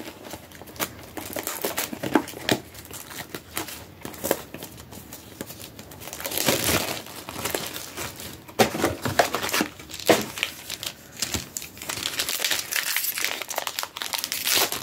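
Pokémon card booster-pack packaging crinkling and tearing as packs are opened: a run of sharp crackles, denser and louder about six seconds in and again near the end.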